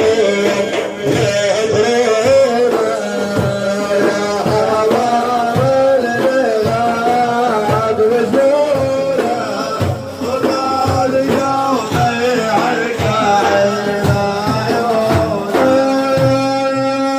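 Middle Eastern devotional music: an ornamented melodic line over regular drum beats. It settles into a steady held chord near the end.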